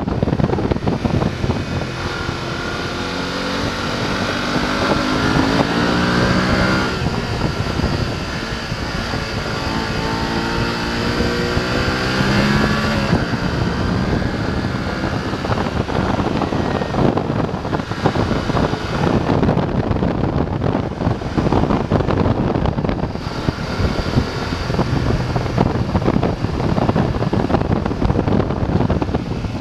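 BMW F 850 GS parallel-twin engine pulling under way, its pitch climbing as it revs, dropping at a shift and climbing again, then running more steadily. Wind rushes over the microphone throughout.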